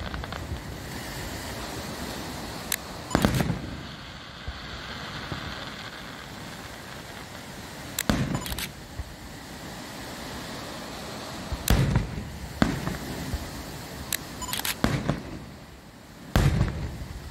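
Aerial fireworks shells bursting overhead: a series of sharp booms every few seconds, sometimes two in quick succession, with a steady hiss between them.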